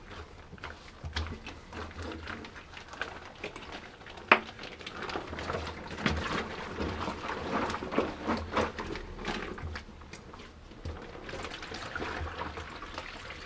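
Soapy wash water pouring and sloshing out of a Scrubba wash bag into a sink, with irregular handling noises from the bag and one sharp click about four seconds in.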